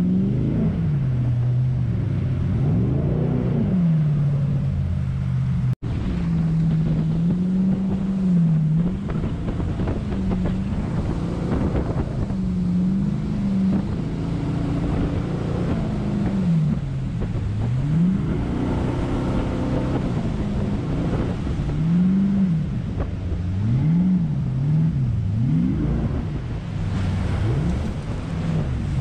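Jet boat engine running hard, its pitch rising and falling again and again as the throttle is worked through whitewater rapids, over rushing water and wind noise on the microphone.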